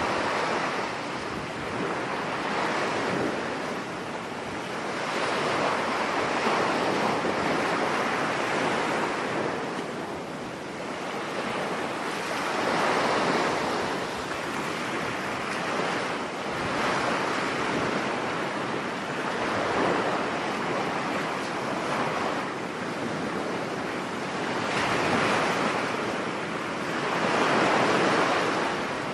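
Storm surf breaking on a beach, with wind. The waves swell and fall away every few seconds in a continuous wash of noise.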